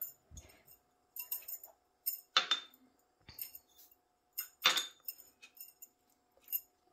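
A spoon mixing dry spice powders in a bowl, with light taps and two louder clinks against the bowl about two and a half and five seconds in.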